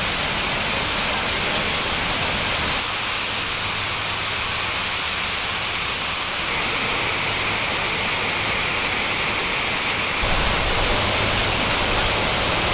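Multnomah Falls: the steady rush of a tall waterfall, a dense hiss of falling and splashing water. A deeper rumble swells about ten seconds in.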